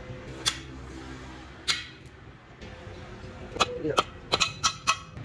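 Hammer striking a steel punch to set rivets through a brake lining into a truck brake shoe. Two single metallic blows come first, then a quick run of about five blows in the second half.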